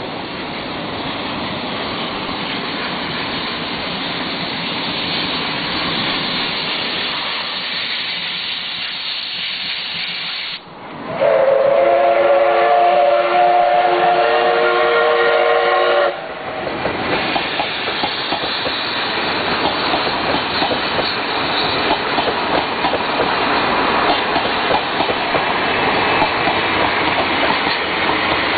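Steam locomotive pulling a passenger train away from a station, with steady working noise; about eleven seconds in it sounds one long steam whistle blast of about five seconds that cuts off sharply. Then the coaches roll past with wheels clacking over the rail joints.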